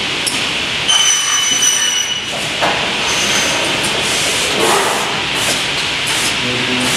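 A plastic window-profile processing machine running with a steady mechanical noise. A high-pitched whine comes in for about a second near the start, and a shorter high tone sounds a little later.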